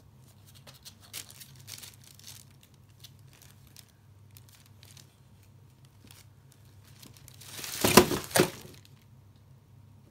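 Kittens' claws scratching and scrabbling lightly on a cardboard box, then, about eight seconds in, a loud crinkling of a plastic bag lasting about a second, in two quick surges, as a kitten clambers on it.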